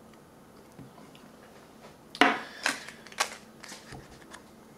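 Hands handling small packaged items, putting down a miniature glass sauce bottle and picking up a small cardboard gum box. After a quiet start come a handful of sharp clicks and rustles from about two seconds in.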